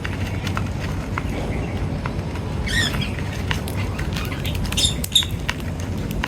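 Birds chirping briefly, about three seconds in and again near five seconds, among many scattered light clicks over a steady low rumble.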